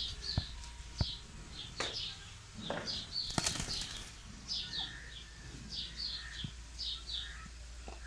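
Parakeets chirping in short, high, repeated calls, with a few sharp clicks, the loudest about three and a half seconds in, as they move about on a wire cage.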